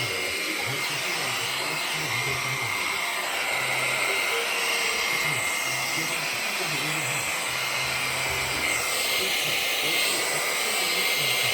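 Vacuum cleaner running steadily while grooming a cat's fur, a constant hiss with a high whine.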